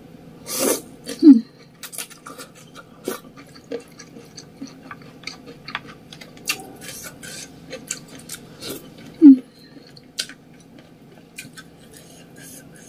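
Close-up eating of spicy ramen noodles: slurping and chewing with many small wet mouth clicks. The loudest moments are about a second in and again around nine seconds.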